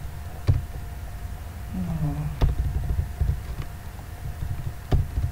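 A few sharp computer-keyboard key clicks, spaced irregularly, over a steady low electrical hum.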